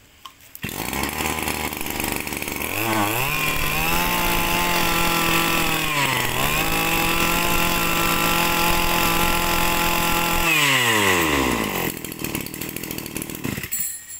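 Shindaiwa 270 brush cutter's 27 cc two-stroke engine starting about half a second in and idling, then throttled up about three seconds in and held at high revs with a brief dip around six seconds, before falling back to idle around ten and a half seconds.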